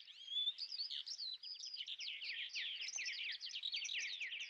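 Small birds chirping in a dense chorus, a continuous run of quick, overlapping high chirps that sweep downward in pitch.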